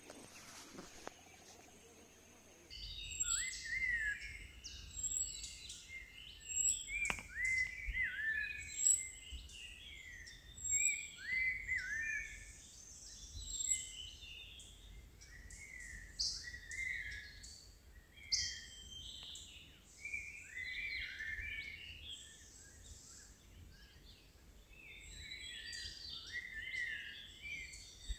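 A chorus of wild birds, many short rising-and-falling calls repeating over and over. It starts abruptly about three seconds in, over a low steady background rumble.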